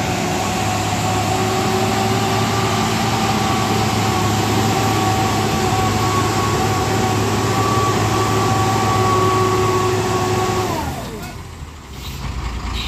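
Tipper truck's diesel engine running hard at high revs with a steady whine as the truck struggles in deep mud. About eleven seconds in, the whine glides down in pitch and the engine note falls away.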